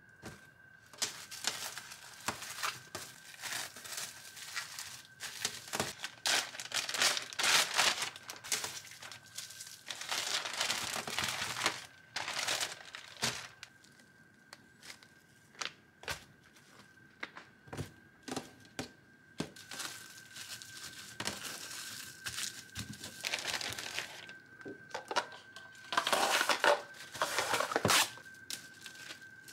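Plastic packaging crinkling and tearing as it is handled, in bursts a second or two long with short pauses and scattered sharp clicks between.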